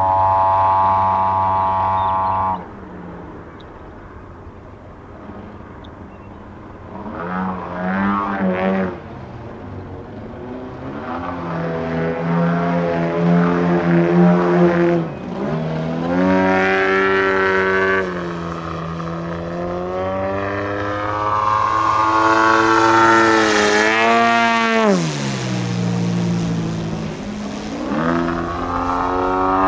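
Engine of a large-scale AJ Laser radio-controlled aerobatic plane in flight. It drops to a low idle for a few seconds near the start, then its pitch swings up and down repeatedly through the manoeuvres, highest a little past the middle.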